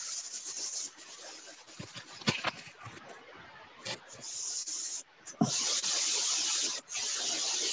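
Rubbing, scraping noise from a microphone being handled during a video call. It comes in stretches, is loudest in the second half, and has a few sharp clicks.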